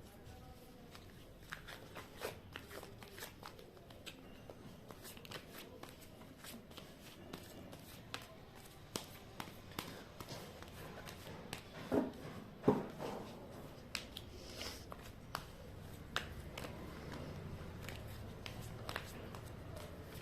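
Tarot cards being shuffled and handled: soft, scattered card flicks and rustles, with two louder taps about twelve seconds in.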